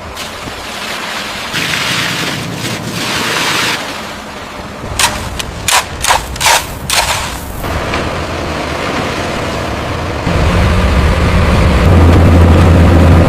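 Road-repair machinery at work: rough scraping noise, then a quick run of about five loud bangs, then from about ten seconds in a heavy engine running with a steady low drone.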